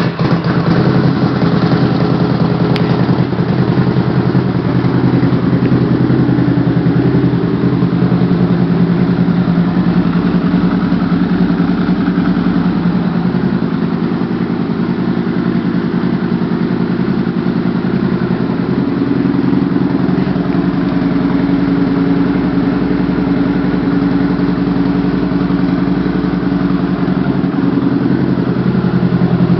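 Rotrex-supercharged 2008 Harley-Davidson V-Rod VRSCDX's liquid-cooled Revolution V-twin idling steadily just after starting.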